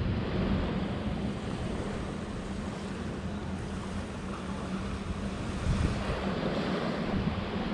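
Wind buffeting the microphone over the steady wash of surf, with a faint steady low hum underneath.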